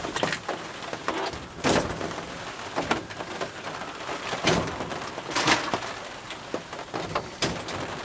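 Cardboard and plastic packaging rustling and crackling as it is handled and crushed, with a few sharper crackles spread through.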